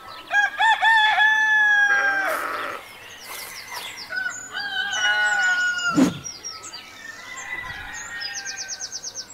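Rooster crowing twice: a long cock-a-doodle-doo just after the start and another about four seconds in. A sharp click follows at about six seconds, and a quick run of high bird chirps comes near the end.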